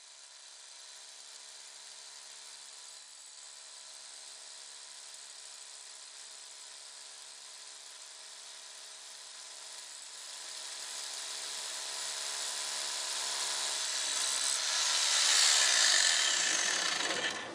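Rotary hammer drill boring an anchor-bolt hole into a concrete floor through a lift post's base plate, a steady motor whine with hammering that grows louder over the second half, then stops shortly before the end.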